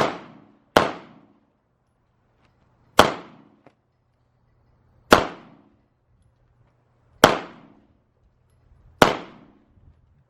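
Gunfire: six single shots at a steady pace, about two seconds apart, each a sharp crack with a short fading tail.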